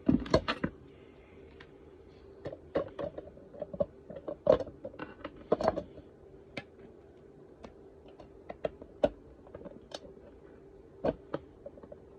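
Irregular light clicks and taps of small hand tools and wire against a circuit board during desoldering, over a faint steady hum.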